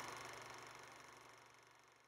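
Near silence: the last of the logo's sound dies away, gone after about a second.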